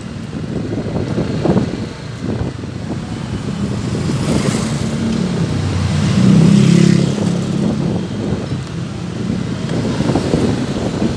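Road noise on a moving motorcycle: wind rumbling on the microphone under a vehicle engine's drone. The drone swells to its loudest about six to seven seconds in, then eases off.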